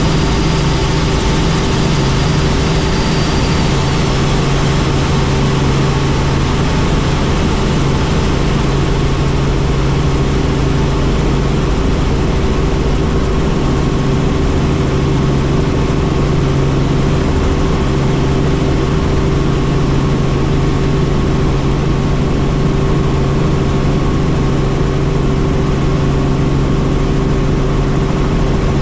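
Helicopter running in flight: a loud, steady drone of engine and rotor with a constant low hum and a fainter high whine, unchanging throughout.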